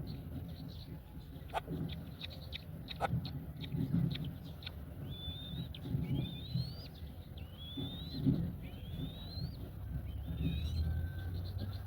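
Black-winged kites calling at the nest: a run of about six short, high, rising squeals, roughly one a second, starting about five seconds in, over a low rumble and a few faint clicks.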